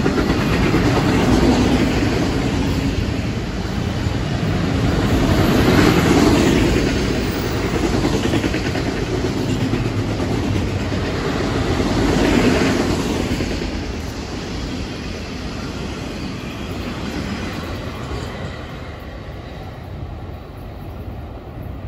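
Freight train's autorack cars rolling past on the rails, the wheels clicking and running over the track, swelling a few times. The sound fades from about two-thirds of the way in as the end of the train moves away.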